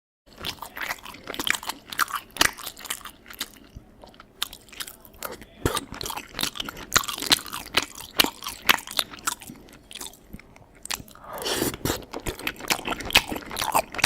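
A person chewing food, with irregular sharp cracks and clicks several times a second. There is a denser, rougher stretch about three seconds before the end.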